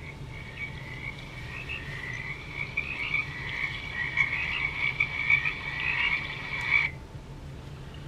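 Sound Oasis BST-80 sound machine playing a frog-chorus nature track through its small speaker: a dense chorus of high calls that stops about seven seconds in. A room heater hums low and steady underneath.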